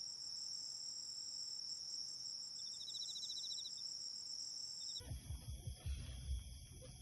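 Insects trilling steadily in a high, continuous drone, with a short rapid chirping trill about three seconds in. About five seconds in the sound cuts abruptly to a different outdoor ambience with low rumbling noise under other high insect tones.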